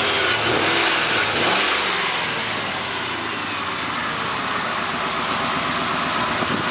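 1999 Mercury Grand Marquis 4.6-litre V8 running steadily at idle. It has stopped shaking now that an ignition connector with a broken clip has been pushed back on, which the owner takes for the cure of its misfire.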